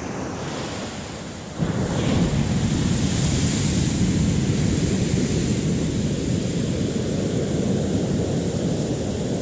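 Ocean surf rushing steadily, with wind buffeting the microphone; the sound steps up abruptly, much louder and deeper, about a second and a half in.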